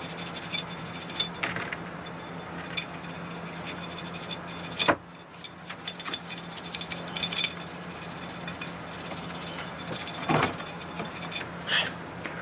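Workshop handling of cleaned engine crankcase parts: light rubbing and scrapes with scattered small clinks of metal, over a steady low hum. There is a sharp click just before the middle.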